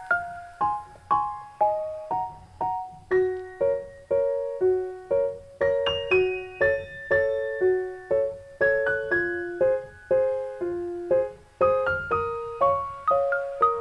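Background music: a gentle piano melody of single struck notes, each fading away, about two notes a second.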